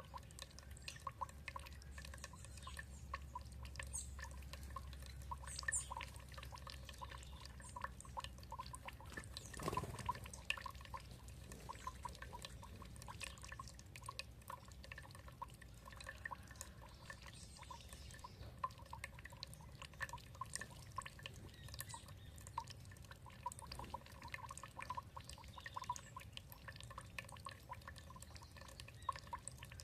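Water trickling and dripping steadily, a constant patter of small drips and splashes. A few faint high bird chirps come about four to six seconds in.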